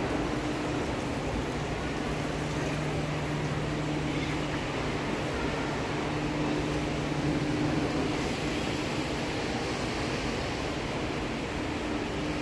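Steady air-conditioning hum in a large airport terminal hall, with a low even drone under it.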